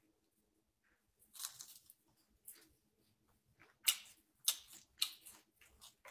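Several sharp clicks and taps close to the microphone over a quiet room, with the loudest in a quick run about four to five seconds in: hands handling the phone or an object near it.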